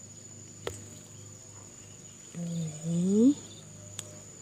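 Steady high-pitched insect trill. About two and a half seconds in comes a short voice-like call that rises in pitch, the loudest sound here, and there are two sharp clicks, one near the start and one near the end.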